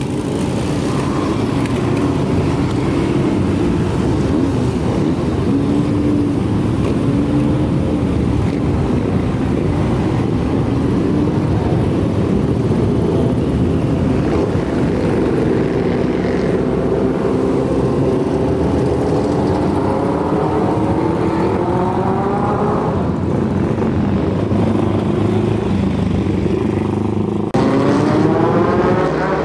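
Many classic and café racer motorcycle engines idling and revving together as the bikes pull away one after another, their engine notes rising and falling as each rider throttles up. Near the end a single motorcycle accelerates, its note climbing steadily.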